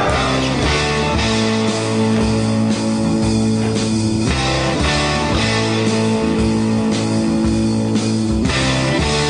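Rock music with guitar, playing steadily as a soundtrack.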